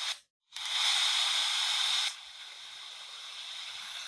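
Static hiss from a cheap feature phone's FM radio, left untuned between stations. The hiss breaks off briefly right at the start, comes back loud, then drops to a lower steady level about two seconds in.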